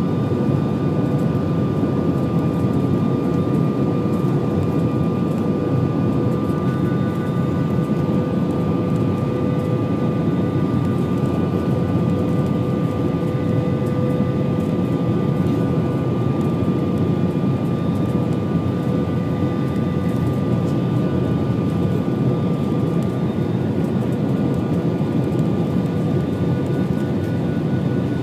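Cabin noise inside an Airbus A320 on final approach: a steady rush of airflow and jet engine noise, with a few constant tones above it.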